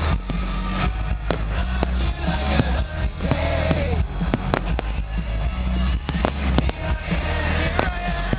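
New Year's Eve fireworks going off: many sharp bangs and cracks at irregular intervals, over the din of a crowd with music playing.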